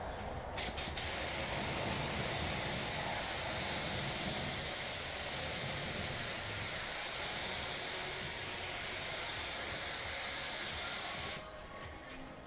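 Pneumatic paint spray gun spraying: a steady hiss of compressed air, starting after a few short clicks about half a second in and cutting off suddenly near the end.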